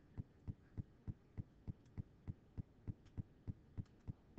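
Faint, evenly spaced thumps, about three a second, each with a light click on top, over a low hum.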